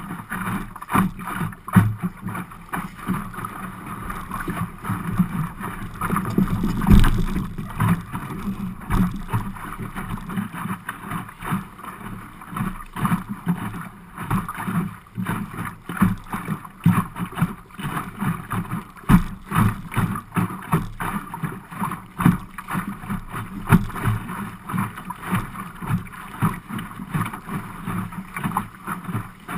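Small waves slapping against the hull of an Optimist sailing dinghy, making many irregular knocks, with wind buffeting the microphone. One stronger knock comes about seven seconds in.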